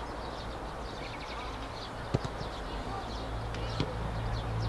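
Football being kicked on a grass pitch: a sharp thud about two seconds in and a lighter one nearly two seconds later, over field ambience with faint shouts of players and high chirps.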